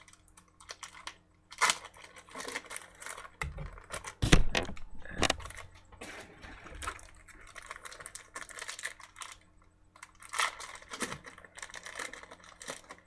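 Hands tearing open trading card packs and handling the cards: irregular clicking and rustling, with a heavier thump about four seconds in.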